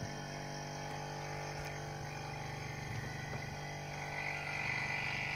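Electric refrigerant vacuum pump running with a steady hum while it pulls a vacuum on a car's freshly rebuilt air-conditioning system to check it for leaks. A higher hiss joins in briefly near the end.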